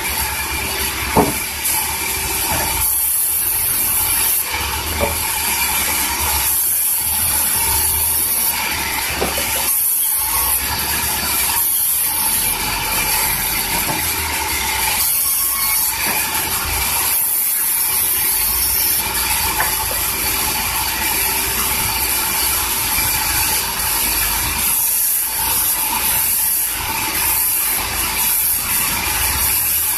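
Large band sawmill running and sawing through a big mango log: a continuous loud mechanical noise with a steady hum through it. A single sharp knock about a second in.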